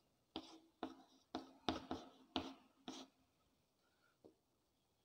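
Chalk writing on a chalkboard: about six short scratching strokes over roughly three seconds, then it stops.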